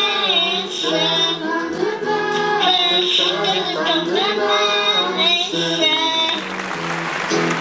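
A child singing along to a song through a toy karaoke microphone, played back tinny and thin through a small toy speaker. The music stops about six seconds in, and clapping follows.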